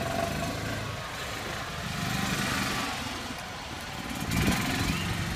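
Golf carts and a John Deere Gator utility vehicle driving past one after another, small engines running, with tyre noise on wet pavement. The sound swells twice as vehicles pass close.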